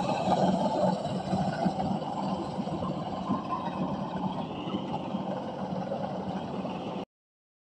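An engine running steadily, with a rough, even drone; it cuts off suddenly near the end.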